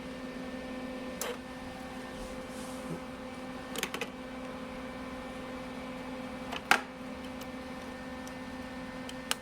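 Wire feed motor of a Lincoln Electric MIG Pak 140 welder running steadily, pushing welding wire through the gun liner. Several sharp clicks break in, the loudest about two-thirds of the way through.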